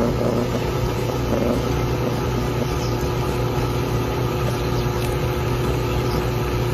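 Drill press motor running steadily while a large twist bit drills into metal, a constant hum with no change in speed.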